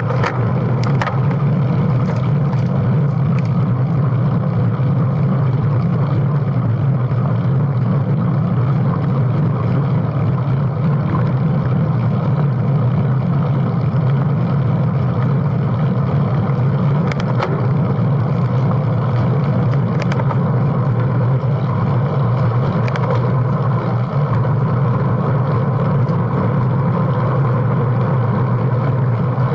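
Steady low rumble of wind and road noise on a bike-mounted camera riding among road cyclists, with a few light clicks.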